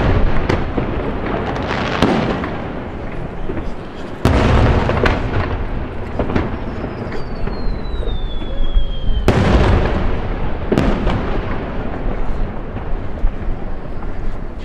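Aerial firework shells bursting, with crackling throughout. Loud booms come about four seconds in and again about nine seconds in, each followed by a long rolling echo, and a whistle falls in pitch for a few seconds just before the second big boom.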